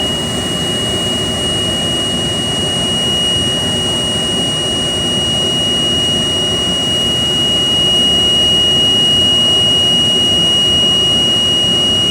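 Orion VII NG transit bus's warning alarm sounding one steady, unbroken high-pitched tone over the bus's engine and road rumble inside the cabin; the rider suspects an overheat warning, though the driver says the engine is not overheating.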